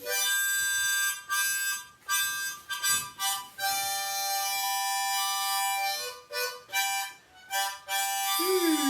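Harmonica played in short blown chords and single notes that break off and start again, with one long held chord in the middle.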